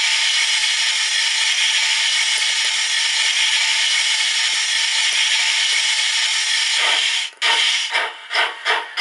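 Sound decoder of a Lenz O gauge Br98.8 model steam locomotive playing a cylinder drain blowdown: a loud steady hiss of steam for about seven seconds that cuts off. The loco then moves off with steam exhaust chuffs, about three a second and starting to quicken.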